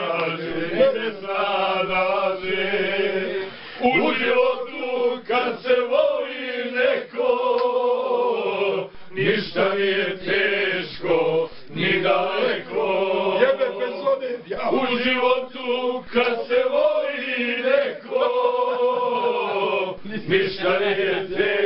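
A group of men singing together without instruments, in long drawn-out phrases broken by short pauses every few seconds.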